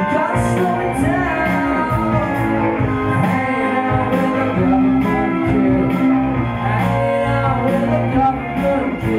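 A live rock song played on electric guitar, with a singing voice over it at times.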